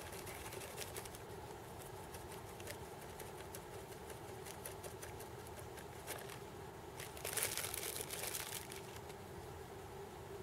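Crinkling and rustling of a hot chocolate mix packet being handled and its powder poured into an insulated mug, many small crackles, with a louder rustle of the packet about seven seconds in lasting over a second.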